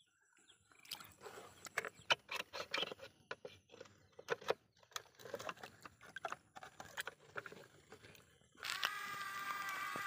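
Plastic toy trucks being handled in shallow muddy water: irregular splashes, drips and hollow plastic knocks. Near the end a steady whine of several held tones starts suddenly.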